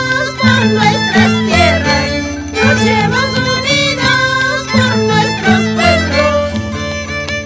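Andean harp and violins playing a lively traditional folk tune, the harp's low bass notes changing every half second or so under the violins' melody.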